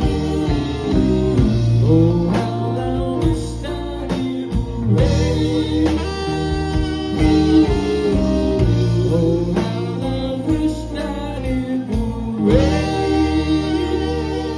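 Live band playing a slow soul ballad, with guitar to the fore and wordless singing over it.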